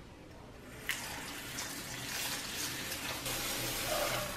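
Kitchen tap running water into a rice cooker's inner pot of uncooked rice, filling it to rinse the rice. The water starts about a second in and stops near the end.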